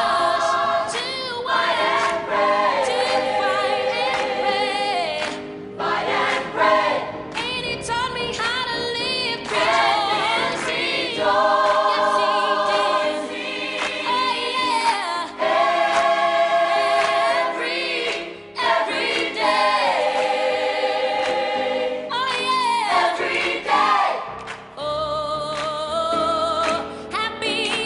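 A choir singing, with long held notes in several voice parts: background music.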